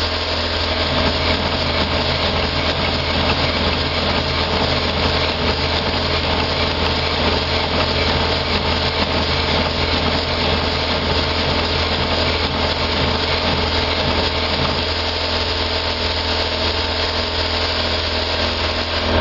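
Kozo A3 1.5-inch-scale locomotive chassis running on compressed air at about 65 psi, its driving wheels turning steadily, with a continuous rush of air from the cylinders and air hissing out of the steam chest, which has no gaskets fitted. A steady low hum runs underneath.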